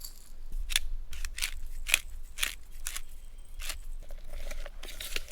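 Fresh pico de gallo (tomato, pepper, onion, cilantro, lime juice) being stirred in a bowl with a utensil: irregular sharp clicks and wet scrapes, two or three a second.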